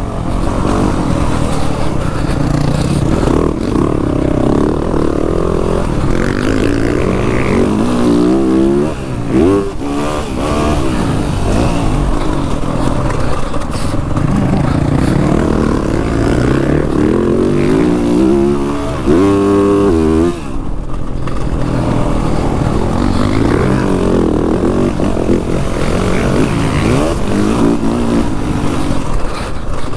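Motocross bike engine ridden hard, heard up close, its revs rising and falling continuously through the gears. The revs climb sharply about nine and nineteen seconds in, then drop briefly just after twenty seconds.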